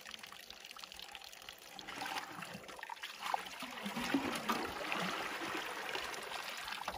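Water trickling and pouring from a roadside spring fountain, growing louder from about two seconds in.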